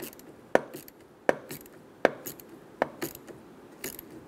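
Ratchet wrench on a socket extension snugging down a battery terminal nut, giving a sharp click with each short back-stroke, about five in all, roughly one every three-quarters of a second.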